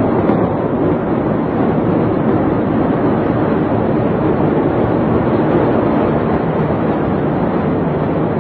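Steady rushing noise of wind buffeting the phone's microphone, unbroken and without any bang.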